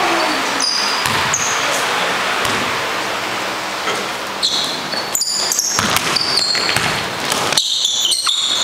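Basketball bouncing on the gym floor during a pickup game, with short high sneaker squeaks from players moving on the court.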